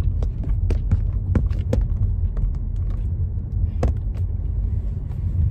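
Steady low rumble of a car heard from inside the cabin, with scattered short clicks and knocks, the sharpest about four seconds in, as a phone that tipped over in its mount is handled and set back up.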